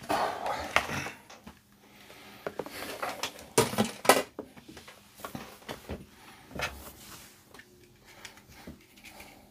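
Scattered clicks, taps and clatter of tools and hard parts being handled on a workbench, with a few louder knocks about three and a half to four seconds in.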